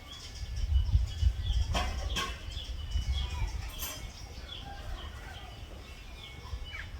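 Small birds chirping in short, scattered calls over a steady low rumble, with a few sharp clicks about two seconds in.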